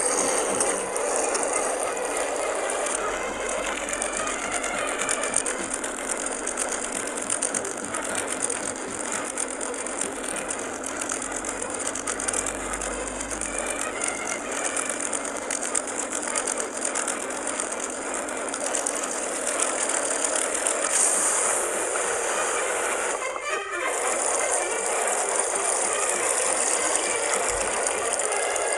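Whirlpool washing machine running a warm wash cycle, sped up 20 times, so the motor and agitation blur into a steady, fast mechanical chatter. It dips briefly once, near the end.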